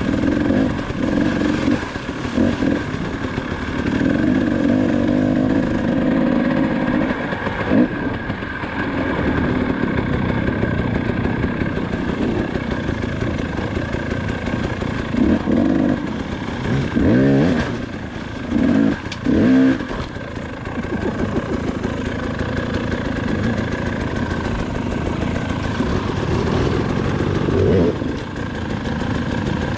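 KTM 300 XC-W two-stroke single-cylinder dirt bike engine under varying throttle while riding a rocky creek bed. The revs rise and fall, with several quick throttle blips in the second half.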